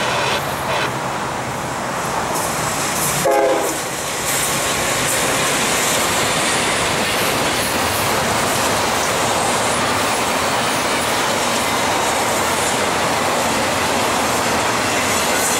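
Westbound Norfolk Southern double-stack intermodal train led by GE ES40DC and Dash9-40CW locomotives: a horn dies away in the first second, a short louder burst comes as the locomotives pass about three seconds in, then the double-stack container cars roll by with a steady rumble and wheel clatter.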